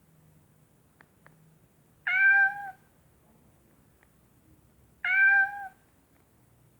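Nokia 105 ringtone made of a recorded cat meow, played twice about three seconds apart. Each meow lasts under a second and bends slightly in pitch. The two meows sound the same.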